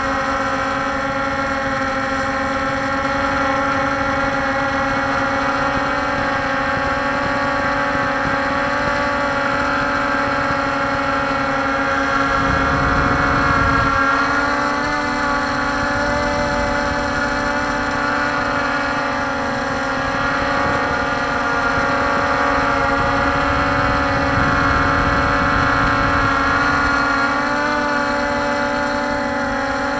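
Walkera Scout X4 quadcopter's four motors and propellers humming steadily, heard from on board the drone. The pitch wavers slightly and the hum swells a little about halfway through, as the throttle shifts in flight.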